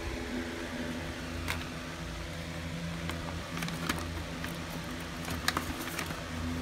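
Paper gift bag crinkling several times as hands reach into it, over a steady low hum.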